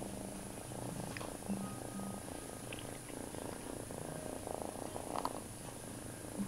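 Domestic cat purring steadily, close to the microphone.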